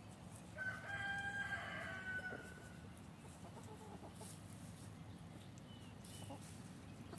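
A rooster crows once, a single call of about two seconds starting just under a second in. Hens cluck softly around it afterwards.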